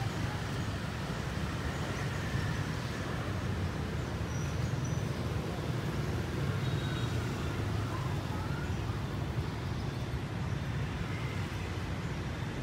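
Steady hum of city traffic, a continuous low rumble with no single vehicle standing out.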